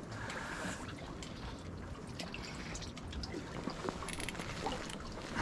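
Water dripping and trickling, with scattered small clicks and ticks over a steady hiss.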